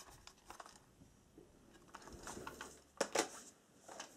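Plastic cassette case handled in the hands: scattered light clicks and taps, with a louder double click about three seconds in as the case is set down on a cardboard record sleeve.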